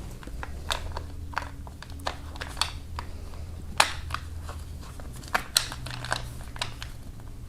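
Scattered light clicks and taps of a timing chain and its plastic chain guide being handled and fitted by hand on a Kia 2.4 GDI engine, the sharpest about four seconds in, over a low steady hum.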